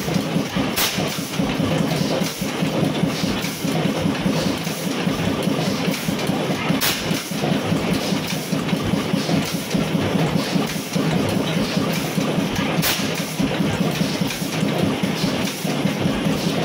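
Large horizontal stationary oil engine running steadily with a fast, even mechanical clatter from its valve gear and fuel pump. A sharp click stands out about every six seconds.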